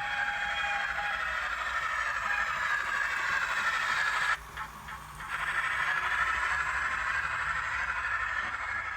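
Steam locomotive sounds from a Zimo MX648R sound decoder in a Hornby J15 model locomotive, played through its small on-board speaker as a continuous hissy, rattling sound. About four seconds in it drops out for around a second, then resumes.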